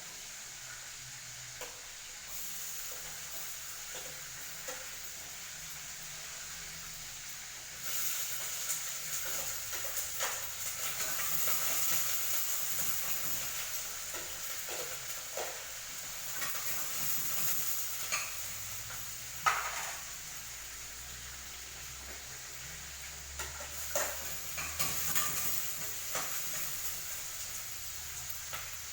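Food sizzling in a frying pan, louder from about eight seconds in, while a utensil stirs it and now and then knocks and scrapes against the pan.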